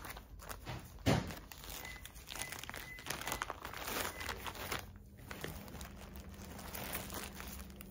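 Plastic bag crinkling and rustling as a piece of cross-stitch fabric is handled and put back into it, with one sharp thump about a second in.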